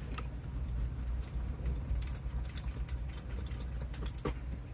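Storm wind rumbling steadily on the microphone, with scattered light clicks and jingles throughout.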